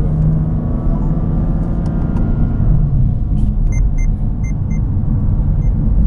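Cabin sound of a BMW M4 CS on the road: its twin-turbo straight-six drones with a slowly rising pitch for the first two seconds or so, then eases off to a low engine and road rumble. Several short, high electronic beeps sound about midway.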